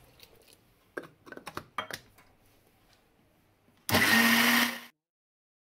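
A few light knocks and clicks, then the ELGI Ultra Stealth mixer grinder's 750 W motor runs for about a second with a steady whirr and hum and cuts off suddenly.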